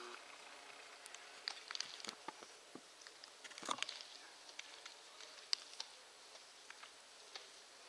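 Faint, irregular clicks and taps over quiet outdoor background, with one slightly louder knock a little after halfway.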